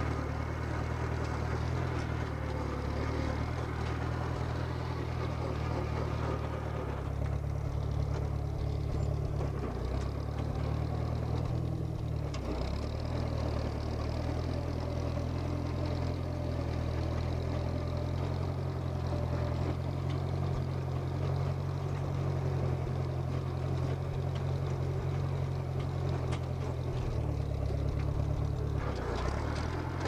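Case 310 crawler bulldozer's engine running steadily at light throttle while the dozer blades packed sand, its note shifting slightly a couple of times.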